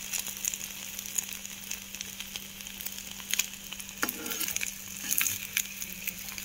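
Egg omelette frying in hot oil in a pan: a steady sizzle with scattered sharp pops and crackles, as its second side cooks after being flipped.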